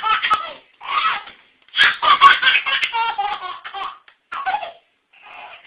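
A baby laughing hard: hearty belly laughs in five bursts, with short breaks between them.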